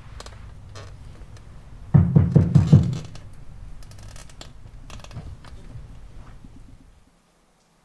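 Heavy knocking on a door, a quick run of about five or six blows about two seconds in, over a low steady drone that cuts off suddenly near the end.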